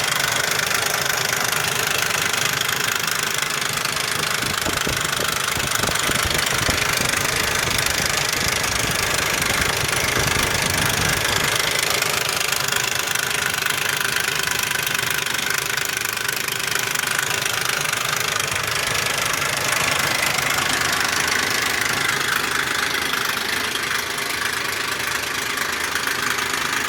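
Ford 4.0 L SOHC V6 in a 2001 Explorer Sport running steadily with a loud rattle. The owner suspects the right-hand bank's rear timing chain or cam sprocket, as all three right-bank cylinders have low compression.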